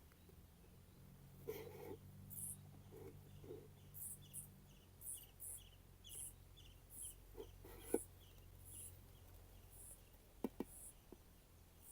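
Faint, evenly repeated short high chirps from a small animal, about two a second, over a low steady hum, with a few sharp clicks in the second half.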